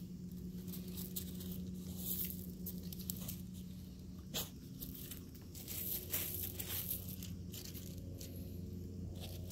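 Pebbles crunching and rattling in irregular bursts as husky puppies paw and nose at the gravel, with a louder crunch about four and a half seconds in. A steady low hum runs underneath.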